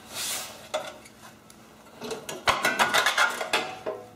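Rusty sheet-metal engine cover being worked off a Briggs & Stratton small engine: a scrape as it starts to move, a single click, then a quick run of metal clanks and rattles over the last two seconds as it comes free.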